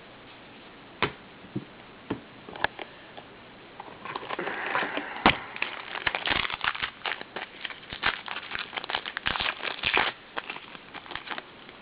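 Trading-card pack wrapper crinkling and crackling as it is opened and handled, dense from about four seconds in until about ten seconds. A few scattered light clicks come before and after.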